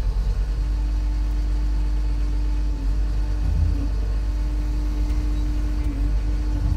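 SANY STC1000 truck crane's engine running with a steady hydraulic whine as the telescopic boom is being retracted; a boom section is sticking in its retraction.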